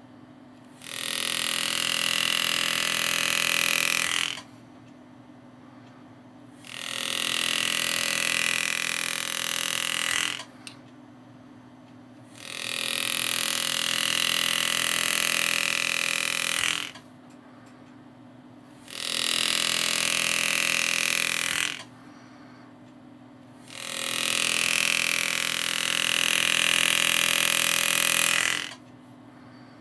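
Power-assisted engraving handpiece buzzing as its graver cuts scroll lines into a steel rifle grip cap. It comes in five bursts of a few seconds each, each starting and stopping sharply, with short pauses between.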